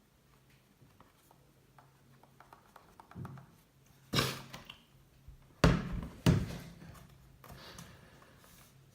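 Knocking from a 2017 15-inch MacBook Pro: faint light clicks at first, then three loud sharp knocks about four, five and a half and six seconds in. It is the knock the owner reports as a fault in the laptop.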